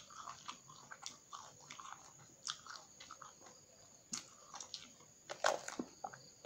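Crisp bites and chewing of raw round green eggplant: irregular crunches, the loudest about five and a half seconds in.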